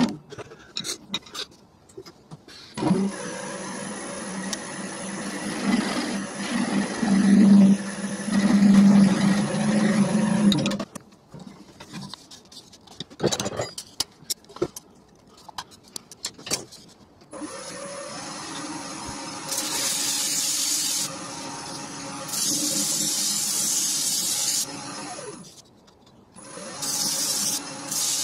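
Wood lathe running with a steady hum. It stops for a few seconds of clicks and knocks from tools being handled, then runs again with short bursts of hiss over it.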